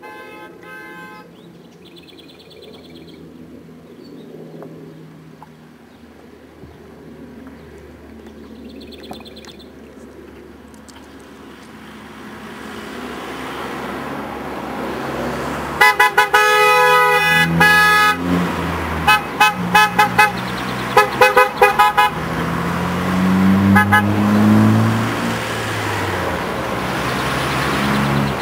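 A convoy of Opel cars approaches and passes, with engine and tyre noise building from about halfway. One long car-horn blast comes first, then a string of short toots, and an engine revs up as the cars go by near the end.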